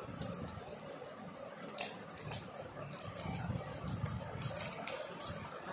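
Hands handling a plastic earbud charging case: scattered small clicks and scratching of plastic under the fingers, with a few sharper clicks around the middle.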